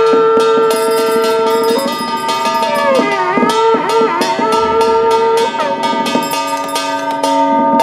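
Taoist priest's ritual horn blown in long held notes that swoop down and back up in pitch, stopping about two-thirds of the way through. Under it, a Taoist hand bell is shaken in quick, even strokes, a few a second.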